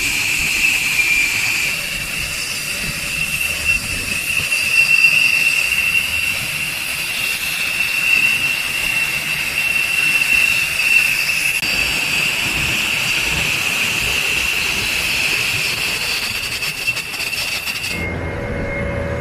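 Steady high turbine whine with hiss from a B-1B Lancer running on the ground. Near the end it gives way to the lower engine of an aircraft tow tractor.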